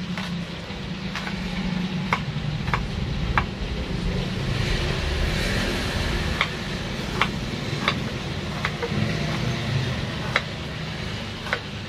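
Shallots being sliced by hand with a kitchen knife, a crisp short cut about every second. Under the cuts runs a steady low rumble that swells in the middle.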